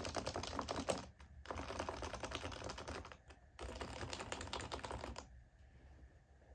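Fast typing on an HHKB Pro 2 keyboard with its Topre rubber-dome switches and stabilizers lubed: dense runs of muted key clacks in three bursts with short pauses, stopping about five seconds in.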